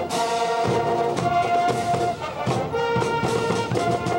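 Marching band playing: brass holding chords that change every second or so, over drum hits.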